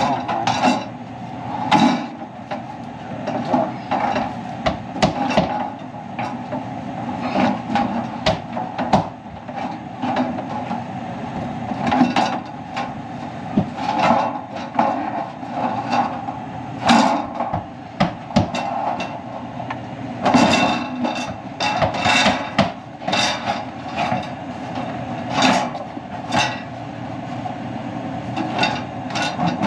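Sheet-metal access door of a Carrier furnace knocking, clanking and scraping against the cabinet as it is worked into place, irregular sharp metal knocks throughout over a steady hum.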